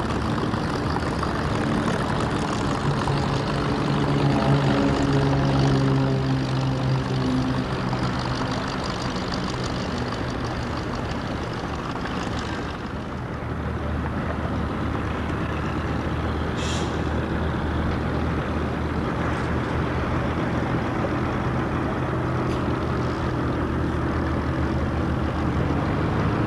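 Heavy engines running steadily nearby. Their pitch rises and falls over the first several seconds, and a lower steady drone takes over about halfway through.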